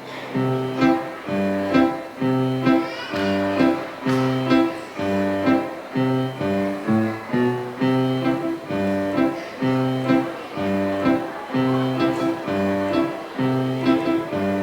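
Instrumental music with a steady, bouncy rhythm: short plucked-string notes repeating in a regular pattern over a bass line.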